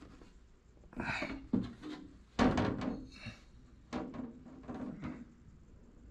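A clear panel being fitted back onto a wooden display box: a series of knocks, scrapes and rattles as the sheet bumps and slides against the wooden frame, the loudest a knock about two and a half seconds in.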